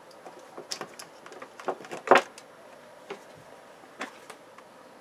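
A scatter of short clicks and knocks, about seven, the loudest about two seconds in: equipment and controls being handled on an electronics test bench.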